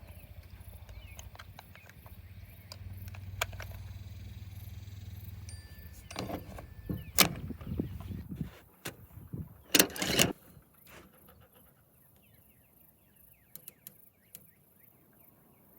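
Metallic clicks and knocks of a rifle and shooting gear being handled, over a steady low rumble that stops about six seconds in; the two sharpest clacks come about seven and ten seconds in, then it goes nearly quiet.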